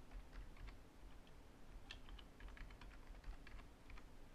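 Faint computer keyboard typing: a short run of key clicks near the start, then a longer, quicker run from about two seconds in, as a password is typed into two fields.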